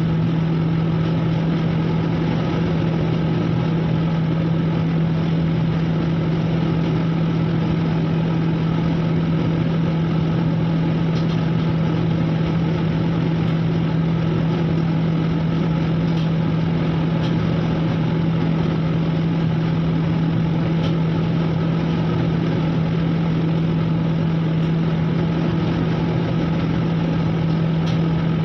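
Steady machinery drone with a strong low hum that never changes, typical of a merchant ship's engines and machinery heard inside the hull.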